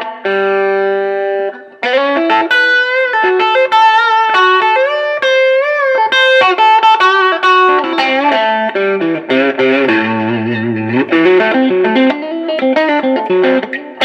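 Distorted electric guitar, a Fender American Special Stratocaster with hot-rail-style pickups played through a Mooer Solo distortion pedal into the clean channel of a Bugera V22 tube amp. A held chord cuts off about two seconds in, then comes a lead line of long sustained notes with bends and vibrato, moving down to lower notes around ten seconds in.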